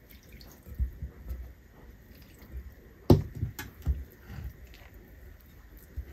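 Hands mixing wet pizza dough in a bowl as water is added a little at a time: irregular soft squelches and dull knocks, with one sharper knock about three seconds in.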